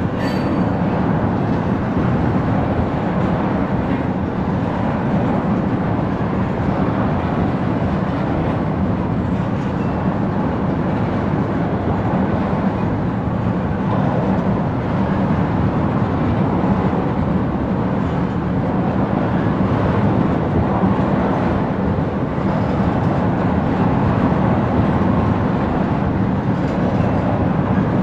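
Railroad tank cars of a freight oil train rolling past: a steady, unbroken rumble of steel wheels on rail.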